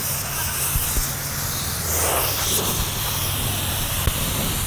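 Aerosol spray can with a straw nozzle spraying onto the metal rotisserie rods, a hiss that grows stronger about two seconds in.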